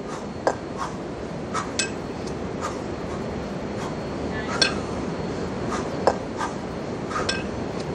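Pair of 20 kg kettlebells clinking against each other during clean-and-jerk reps: about ten short, sharp metallic clinks at irregular intervals over a steady background noise.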